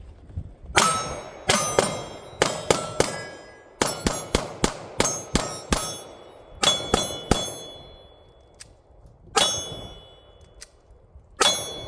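Rapid semi-automatic pistol fire at steel targets, each shot followed by the ring of the struck steel plate. The shots come in quick strings of about three a second with short pauses between, then two single shots near the end.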